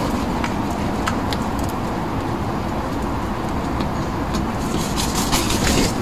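Steady rumble of road traffic, with a few faint clicks and taps as crows and a magpie peck at bread on the paving.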